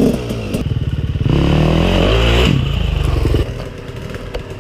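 Enduro dirt bike engine chugging at low revs, then revving up and dropping back about two to three seconds in, and quieter near the end.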